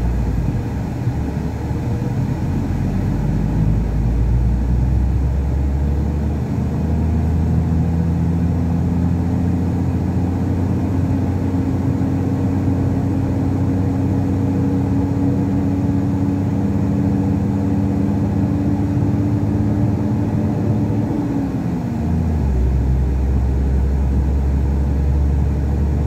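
Truck's diesel engine running under way, heard from the cab with road rumble. The engine note climbs slowly for about fifteen seconds, then drops quickly about 21 seconds in.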